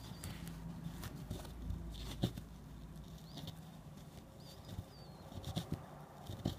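Close handling sounds of a needle and wool being worked through an antique Persian rug's pile and foundation: soft rustling and scattered small clicks, the sharpest a little over two seconds in, with a faint low hum and a few faint high chirps.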